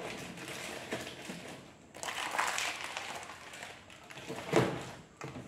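Plastic detergent packets rustling and crinkling as they are handled and packed into a plastic storage drawer, with a few light clicks and a sharp knock about four and a half seconds in.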